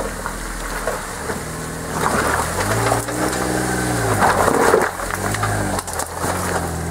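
Jeep Wrangler Rubicon's V6 engine revving up and easing off twice as it crawls over wet rocks in a stream bed, with the tyres crunching on rock and water splashing.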